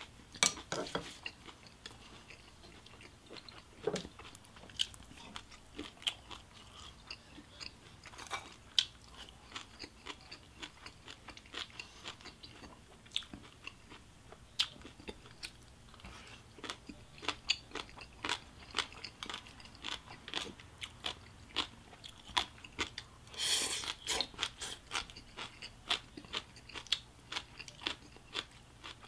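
Close-miked chewing of food in the mouth: irregular crunches, bites and wet mouth clicks, with one brief louder rush of noise about three-quarters of the way through.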